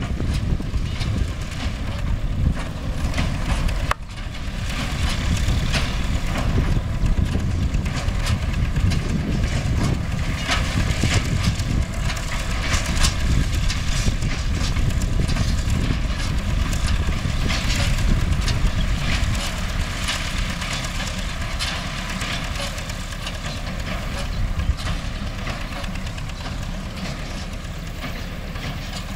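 MTZ-5LS tractor's diesel engine running steadily while driving a Vestjyden hay baler, with irregular clattering from the machinery. The sound drops out for an instant about four seconds in.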